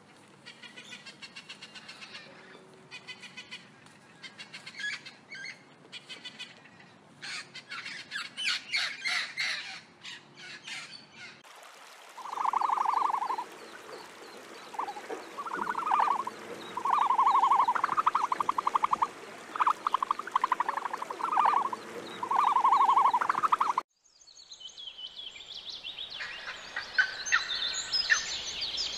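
Rainbow lorikeet chattering and screeching in rapid high bursts. After a cut comes a run of buzzy calls, each about a second long, and after a second cut, quick high chirping.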